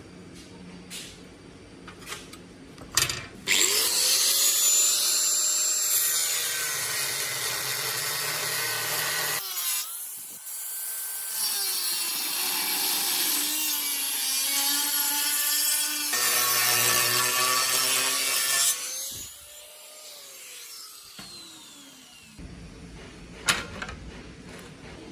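A handheld power tool cutting, loud and continuous from about three seconds in until about nineteen seconds, its pitch sliding as the load on it changes. It then winds down with falling pitch.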